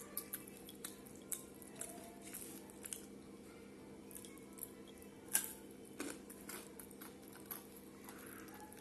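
Close eating sounds: chewing and wet squishing while rice and curry are eaten, with small sharp clicks and smacks throughout, the sharpest a little past halfway. A steady low hum runs underneath.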